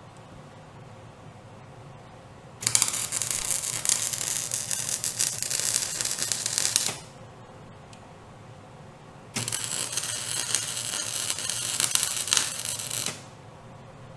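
Wire-feed welder arc crackling in two welds of about four seconds each, starting about two and a half seconds in and again about nine seconds in, each starting suddenly.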